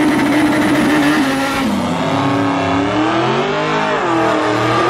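Honda Civic's four-cylinder engine held at high revs through a burnout, spinning its front tyres into smoke. The pitch wavers, then climbs near the end.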